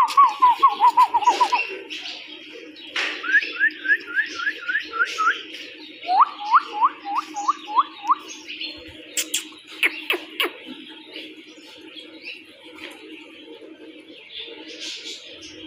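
Birds calling: three quick runs of repeated chirps, each of some seven to ten notes, over a steady background chatter, with a few sharp clicks about nine to ten seconds in.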